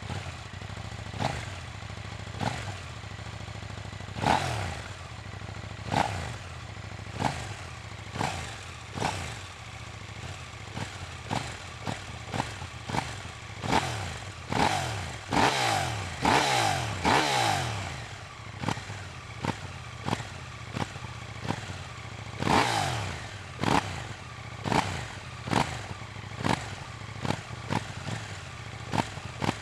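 KTM 890 Duke R parallel-twin engine idling with the throttle blipped over and over, each rev rising and falling back within about a second. In the middle and again later come a few longer, harder revs.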